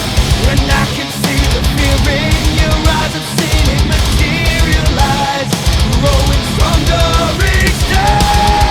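Loud rock music with heavy drums and distorted guitars; a held sung note near the end gives way to quieter strummed electric guitar.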